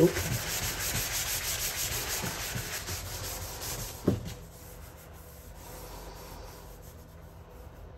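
A 220-grit sanding sponge rubbed quickly back and forth by hand over a cured Bondo putty patch on a fiberglass bathtub, scuffing it smooth before paint. The sanding stops about four seconds in with a single knock as the sponge is set down on the tub, followed by faint rubbing.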